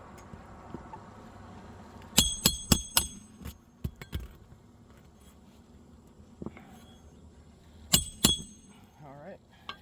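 Hammer strikes on a steel roof snake and roofing nails, each hit ringing with a metallic clink. There is a quick run of about six or seven blows, then two more near the end.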